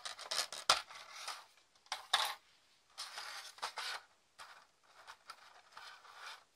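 Hard plastic packaging and small plastic figure parts being handled: irregular sharp clicks and light clatters with short crinkly rustles, busiest in the first second and again around the middle.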